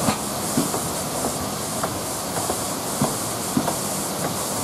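Narrow-gauge passenger coaches rolling past, their wheels clicking over the rail joints every half second or so over a steady hiss.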